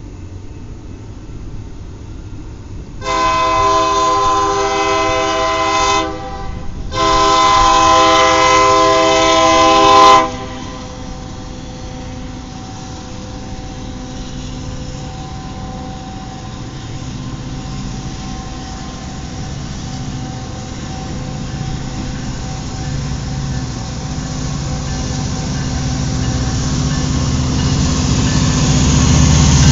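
Freight diesel locomotive air horn sounding two long blasts of about three seconds each, a few seconds in. After the blasts the train's low rumble grows steadily louder as the locomotive draws near.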